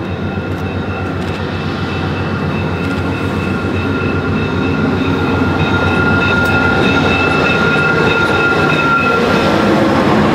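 VIA Rail GE P42DC diesel locomotive and its passenger cars approaching and passing, the engine and wheel rumble growing steadily louder, with a steady high whine over it until near the end.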